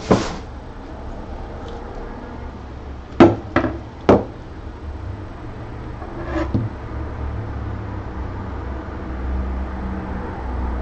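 Hard printer-kit parts knocking and clunking as they are handled: a sharp knock at the start, three more close together about three seconds in and a softer one a few seconds later, over a steady low hum.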